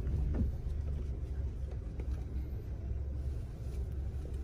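Steady low rumble of a car, heard inside the cabin.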